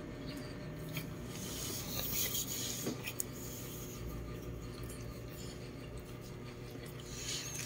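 Close rubbing and rustling of hands handling a wet newborn puppy, fur and towel, with a few faint clicks.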